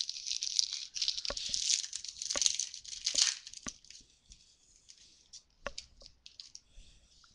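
Foil trading-card pack wrapper being torn open and crinkled by hand, a dense crinkling for the first three seconds or so. After that come fainter crinkles and a few light clicks as the pack and cards are handled.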